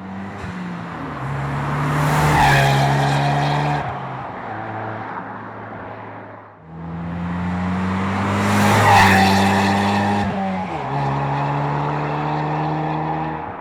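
Ford Mustang EcoBoost's turbocharged four-cylinder running through a Ford Racing by Borla exhaust, heard in two back-to-back clips of the car under way. In each, the exhaust note swells to a loud peak and then eases, its pitch stepping down.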